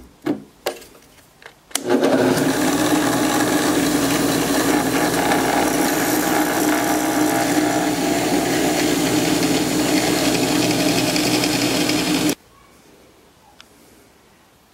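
A few light knocks, then a drill press motor running steadily for about ten seconds as a small twist bit bores through a wooden ball, stopping suddenly.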